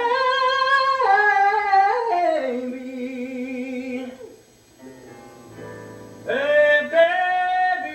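Musical-theatre singers holding long sung notes with vibrato over an instrumental accompaniment. The singing drops away a little past four seconds in, and a final held note comes in about six seconds in.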